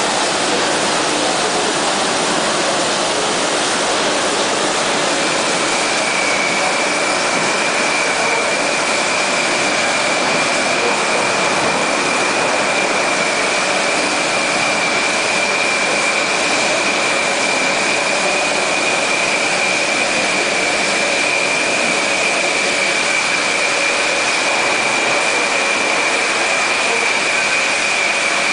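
Filling machinery of a 6-litre PET bottle filling line running: a steady, loud, even machine noise. A thin, high, steady whine comes in about five seconds in and holds.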